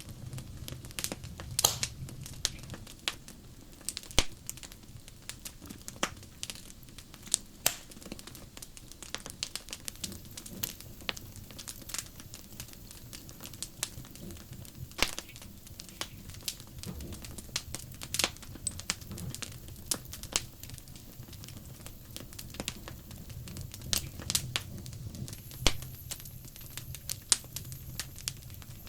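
Wood fire crackling, with sharp pops and snaps at irregular intervals, a few much louder than the rest.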